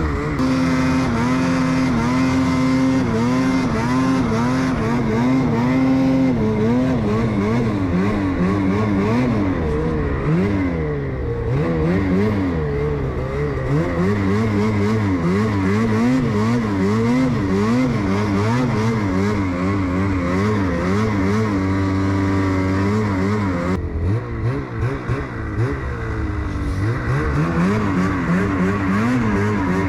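Ski-Doo snowmobile engine running hard, its revs rising and falling continuously as the sled works its way up through snow. The pitch holds steadier about two-thirds of the way through, then dips and stutters briefly before climbing again.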